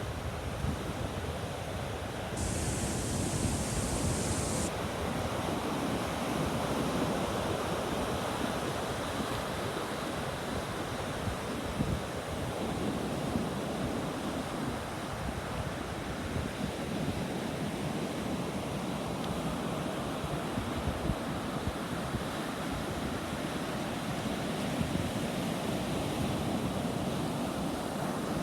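Sea waves breaking and washing up on the beach, a steady rushing surf, with wind gusting on the microphone.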